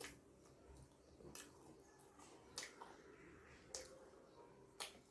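A person biting into and chewing a green chili close to the microphone: quiet, wet mouth smacks, five of them about a second apart.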